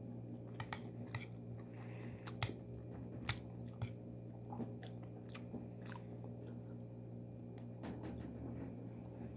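A person chewing a mouthful of rice mixed with yogurt and cucumber: wet mouth sounds with sharp clicks and smacks at irregular intervals, over a steady low hum.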